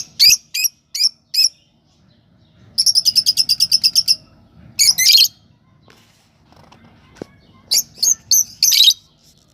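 Lovebirds chirping: a run of short, high chirps, then a rapid trill of about a dozen notes around three seconds in, a longer call near five seconds, and another burst of chirps near the end.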